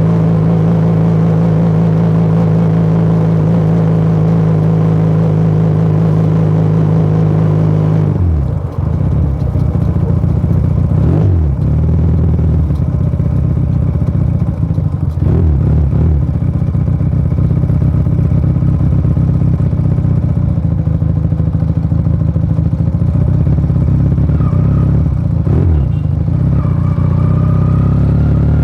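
Motomel Rider 250 motorcycle engine and exhaust running while riding. The engine note holds steady at first. From about eight seconds in, the revs drop, then dip and climb again several times.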